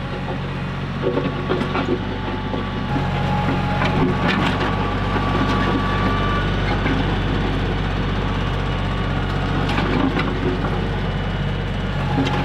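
Compact tractor engine running steadily as it drags a rear grader blade over a dirt road, louder from about three seconds in, with scattered knocks and crunching of soil and debris under the blade.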